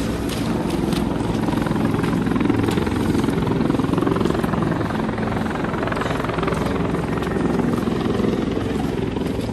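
A heavy engine running steadily: a continuous low drone with a fast, even beat.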